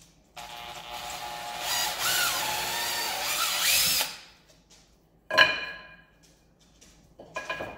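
Makita 18V cordless drill boring into a wooden strip, its motor whining for about four seconds and rising in pitch as it runs, then two short, sharp sounds about two seconds apart near the end.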